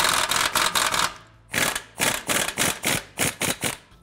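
Half-inch pneumatic impact wrench hammering on rusty 14 mm exhaust nuts at a catalytic converter flange to break them loose. It runs in one continuous rattle for about a second, then, after a brief pause, in a string of about ten short trigger bursts.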